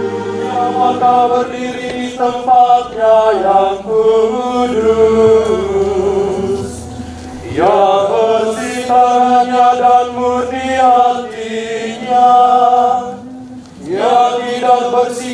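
A group of voices singing a chant together, holding each note in a slow melody, with two quick upward pitch slides, one about halfway and one near the end. Low, sustained instrumental music fades out about a second in.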